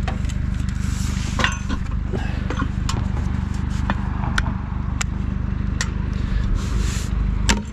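Ceiling fan blades being broken off by hand: a series of sharp snaps and clacks, about eight spread irregularly, the loudest near the end. A vehicle engine idles steadily underneath.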